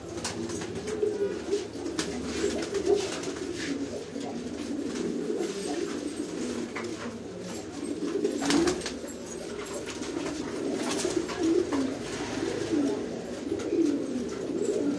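Many domestic pigeons cooing at once in a small loft, their low coos overlapping without a break, with a few brief sharp noises about eight and eleven seconds in.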